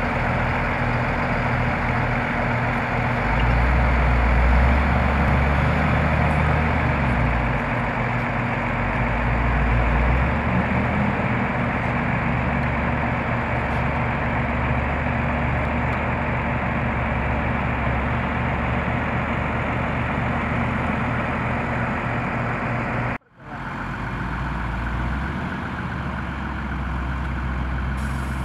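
Large diesel farm tractors running steadily, a deep engine rumble under a dense mechanical hiss. It swells a few seconds in, and about three-quarters of the way through it breaks off for an instant and resumes slightly quieter.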